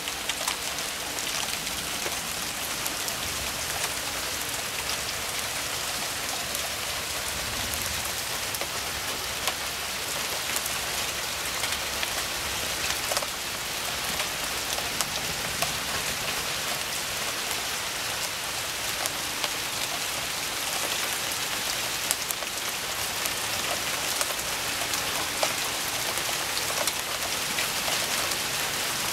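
Steady heavy rain falling in a thunderstorm, with many sharp ticks of drops hitting close by.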